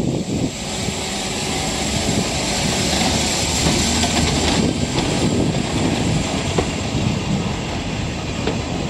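Rhaetian Railway Ge 2/2 161 electric locomotive passing close by with vintage carriages behind it: a steady running noise of the locomotive and wheels on the rails.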